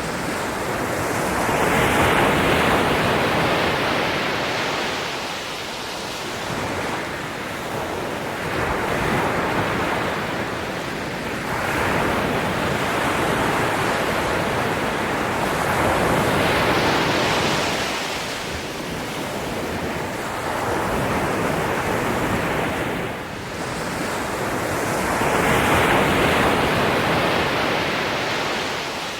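Ocean waves breaking and washing up the shore, a continuous rush of surf that swells and falls back every few seconds.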